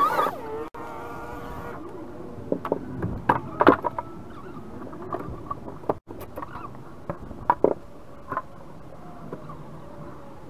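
Scattered wooden knocks and clatters as timber panels and garden debris are handled and moved. A siren's wail trails off at the very start.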